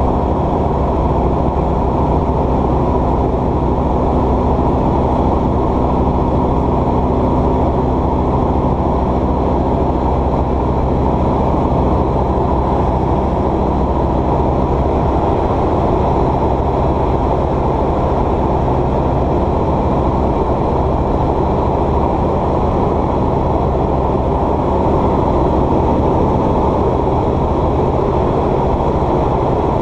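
Light aircraft's piston engine and propeller running steadily, a constant drone heard inside the cockpit.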